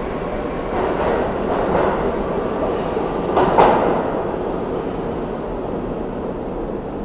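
New York City subway train running through an underground station, a steady rumble of wheels clattering on the rails. About three and a half seconds in there is one sharp, louder clank, after which the sound slowly fades as the train noise becomes duller.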